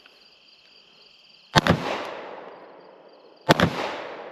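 Two gunshots about two seconds apart, each followed by a long echoing tail that fades.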